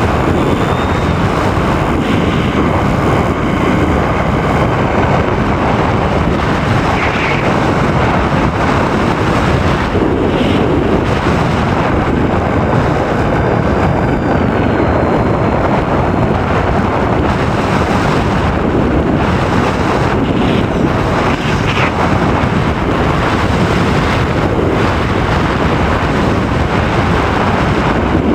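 Steady rush of air over the microphone of a camera riding on a radio-controlled model plane in flight.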